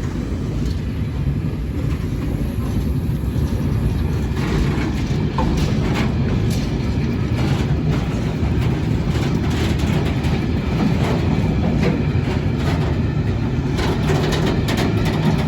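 Engineers' freight train rolling past: the wagon wheels click over the rail joints over a steady low rumble.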